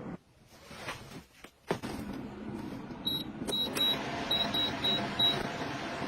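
Two sharp clicks, then about eight short, high electronic beeps in quick groups over a steady hum, like an appliance's control panel being pressed.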